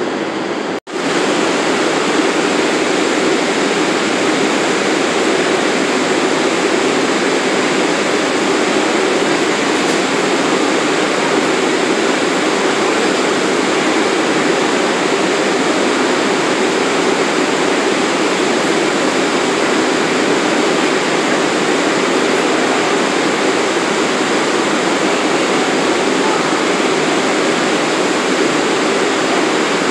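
Steady, even rushing hiss from a subway train standing at the platform with its doors open. A brief dropout in the sound comes about a second in.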